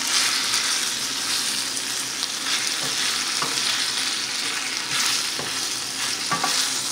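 Chicken strips, onion and green pepper sizzling in a metal skillet over high heat while being stirred and tossed with a wooden spatula. The steady sizzle swells in waves as the food is turned, with a few light scrapes of the spatula against the pan.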